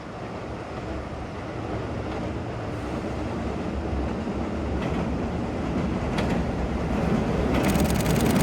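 JR West 213 series three-car electric train approaching, its rumble growing steadily louder. In the last few seconds the first clicks of its wheels over the rail joints begin.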